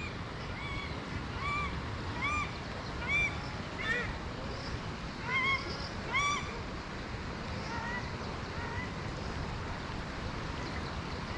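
A bird calling over and over: short calls, each rising then falling in pitch, about one a second for the first six seconds, then a few fainter ones a little later, over the steady rush of river water.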